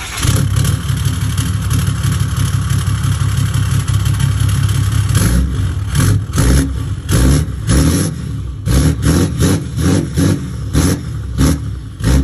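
Pickup truck engine running through a newly installed exhaust: it idles steadily for about five seconds, then is revved in a string of quick blips, about two a second.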